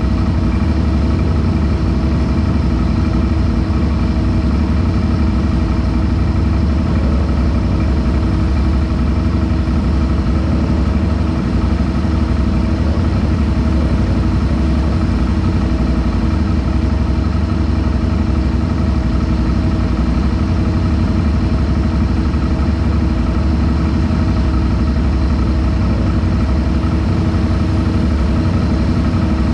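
ATV engine idling steadily, its note and loudness unchanging.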